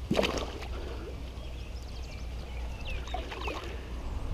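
A large carp splashing into shallow water as it is released and swims off, with a burst of splashing right at the start, then softer water movement.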